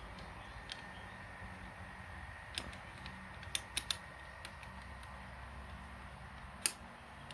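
Bolt of a PCP air rifle being fitted into the receiver: several short, sharp metallic clicks, three close together in the middle and the loudest near the end, over a faint steady hum.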